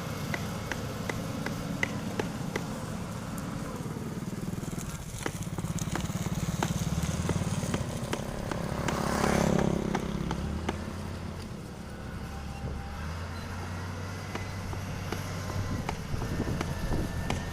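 Heavy road-construction machinery engines running steadily with a low rumble, with scattered clicks. A louder rushing sound swells and fades about nine seconds in.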